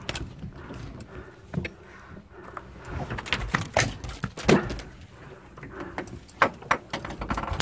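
Irregular sharp knocks and thumps on a boat deck as a freshly gaffed Spanish mackerel and the steel gaff are handled, the loudest a little past the middle and again near the end.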